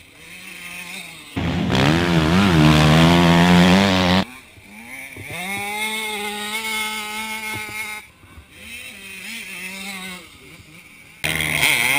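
Motocross bikes racing past on a sand track. About a second and a half in, one goes by close and loud, its engine revving up and down hard for a few seconds before the sound drops away abruptly. Another engine then holds a steadier pitch for a few seconds, followed by fainter engine sound, until the loudness jumps back up near the end.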